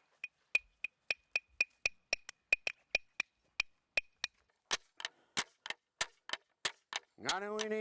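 A pair of wooden boomerangs knocked together as clapsticks, keeping a steady beat of about four sharp clicks a second. Near the end a voice comes in with a long held chanted note over the beat.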